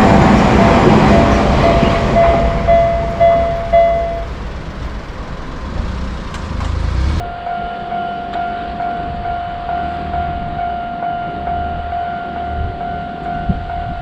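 A train passing a Japanese railroad crossing with a loud rumble while the crossing's warning bell rings rapidly; the bell stops about four seconds in and the train noise dies down. After a sudden cut about seven seconds in, another crossing's warning sounds as a steady tone.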